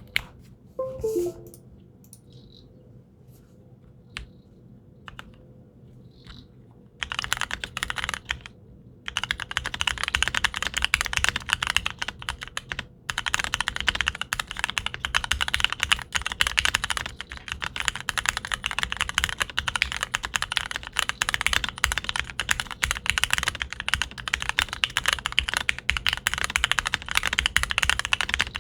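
Typing on a custom mechanical keyboard with lubed, filmed Gateron Milky Yellow linear switches on a POM plate in an acrylic case, under ePBT keycaps. A few scattered keystrokes come first; from about seven seconds in the typing turns fast and continuous, with two short pauses.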